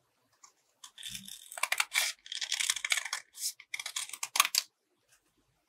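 Scissors cutting through a folded sheet of paper: a run of crisp snips with paper rustling, starting about a second in and stopping shortly before the end.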